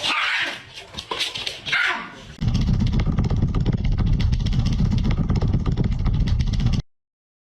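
A dog barking and yipping a few times, then a loud low rumbling noise for about four seconds that cuts off suddenly into silence.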